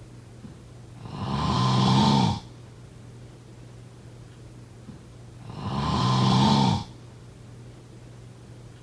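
Person snoring: two long snores about four seconds apart, each swelling up and then cutting off sharply. A faint steady low hum runs underneath.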